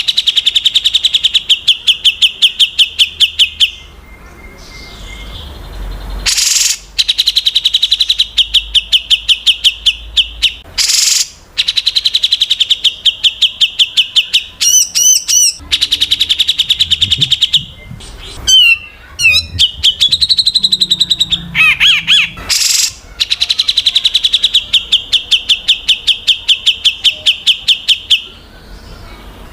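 Songbird song used as filler song for training white-rumped shamas: loud, fast trills of rapidly repeated chip notes, each run lasting a few seconds, with a stretch of varied, sliding whistled phrases in the middle.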